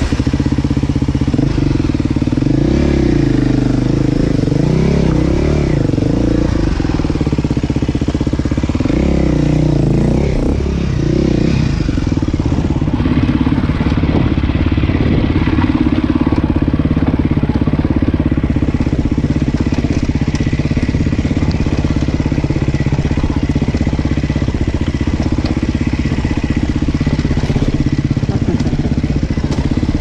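Engine of an off-road trail vehicle working over rough, rocky ground. Its pitch rises and falls repeatedly for the first ten seconds or so, then it runs at a steady speed.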